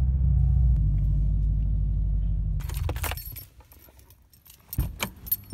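Subaru WRX STI's turbocharged flat-four engine running, then switched off at the ignition key about three seconds in. Keys jangle on the key ring as the engine dies, and again near the end.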